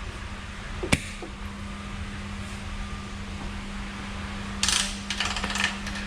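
Metal tools being handled: a sharp click about a second in, then a run of clinking and rattling from about four and a half seconds, over a steady low hum.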